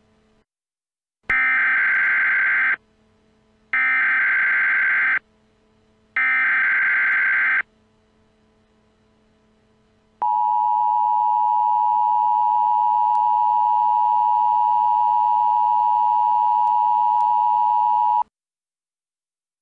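Emergency Alert System signal: three short bursts of buzzing SAME header data, each about a second and a half with a second's gap between them, then the steady two-tone EAS attention signal held for about eight seconds. This is the sequence that opens an emergency alert message.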